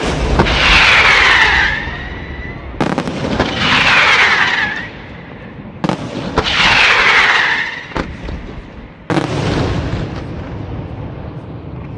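Aerial firework shells bursting: four sharp bangs about three seconds apart, each followed by a second or two of loud rushing noise that falls in pitch and fades.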